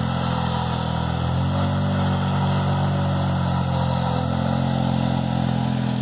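ATV engine running steadily as it tows snow tubes on a rope, its revs rising a little about a second and a half in and then holding.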